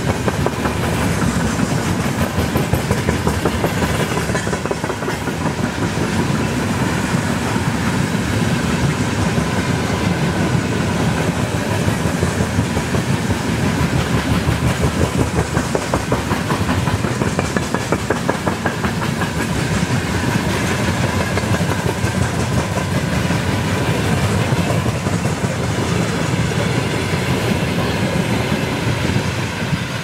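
Freight train rolling past close by, its wagon wheels clattering rapidly and steadily over the rail joints. The sound drops away near the end.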